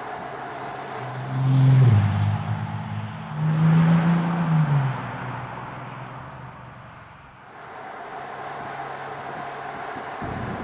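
Bentley Continental GT Speed's twin-turbo W12 engine accelerating hard in two loud bursts, about a second in and again about three and a half seconds in, with a drop in pitch between them. The engine sound then fades away and builds back to a steady engine and tyre noise near the end.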